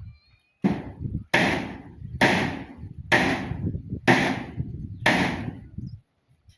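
A run of six sharp, heavy strikes, about one a second, each ringing briefly before the next, like chopping or hammering.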